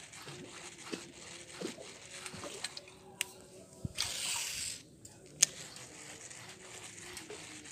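A short splash of water about four seconds in, as a topwater popper lure is pulled out of the surface at the end of a retrieve. There is a sharp click just before it and another just after.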